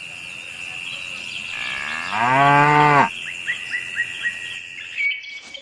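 A cow moos once, one long moo lasting about a second, about two seconds in, over a steady high-pitched tone. A quick run of short chirps follows the moo.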